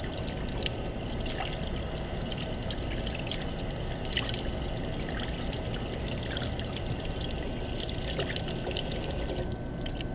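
Tap water running steadily into a utility sink as a freshly developed circuit board is rinsed under it to stop the developing. The high hiss of the flow thins out near the end.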